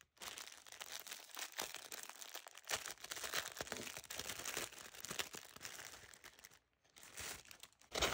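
Faint crinkling and rustling of packaging being handled, in small scattered bursts with a brief pause near the end.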